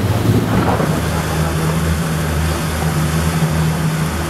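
Passenger speedboat's engines running at cruising speed, a steady low drone with a rush of water and hull noise, heard from inside the cabin.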